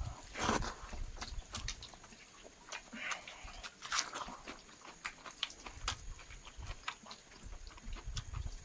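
Close-miked chewing of chicken, with many wet smacks and clicks of the mouth and a few louder, longer smacking sounds.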